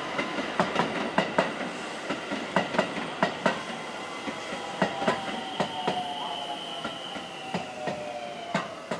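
Multi-car electric commuter train rolling along the tracks, its wheels clicking over rail joints and points, often in quick pairs, with a faint whine that falls slightly in pitch. It grows quieter as the last car passes near the end.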